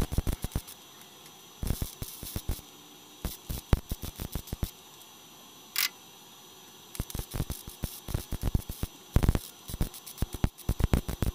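Harbor Freight Titanium 140 MIG welder laying short tack welds on thin body-panel sheet steel. The arc crackles in about five bursts of a second or two each, with short pauses between them.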